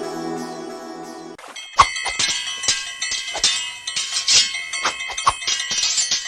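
Soft background music fading out, then, about a second and a half in, a quick run of bell strikes that keep ringing, roughly two or three strikes a second.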